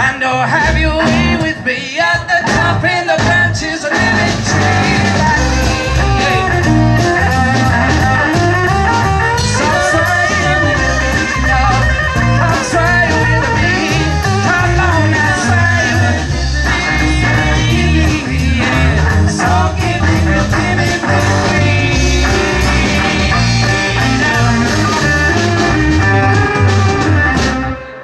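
A band playing a blues-rock song: singing over guitar, with a heavy low end and a steady beat.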